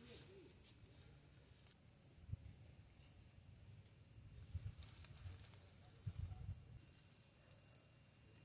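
Crickets trilling in one steady, high, finely pulsing tone, with a few soft low thumps.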